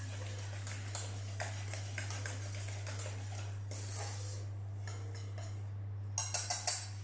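Wire whisk beating potato batter in a stainless steel saucepan: a run of light, irregular scraping clicks, then four quick sharp taps of the whisk against the pan near the end. A steady low hum lies underneath.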